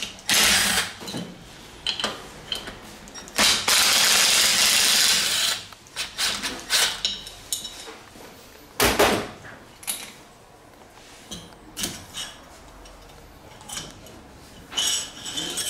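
Mechanic's tools working on a scooter engine during a crankshaft replacement: scattered metal clicks and knocks, with loud hissing bursts, one at the start and a longer one of about two seconds a few seconds in.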